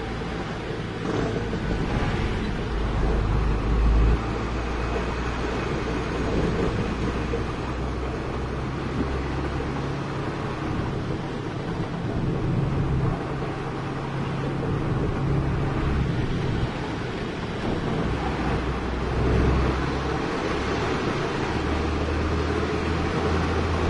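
Heavy diesel engine running, its low rumble rising and falling in pitch every few seconds as the revs change.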